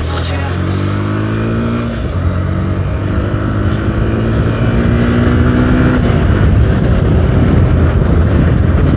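Motorcycle engine accelerating hard in a drag race, its pitch climbing, dropping at a gear change about two seconds in, then climbing again. After about six seconds a steady rush of wind and road noise takes over.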